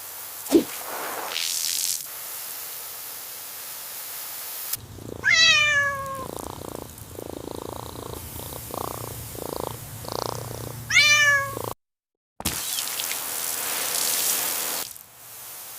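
A cat meows twice, about five and eleven seconds in, each call falling in pitch. Between the meows runs a pulsing purr. Near the start and again after the second meow there is a short click and a hissing whoosh.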